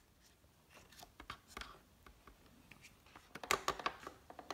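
Small plastic clicks and taps from handling the parts of a toy lip gloss kit, with a quick cluster of louder clicks about three and a half seconds in.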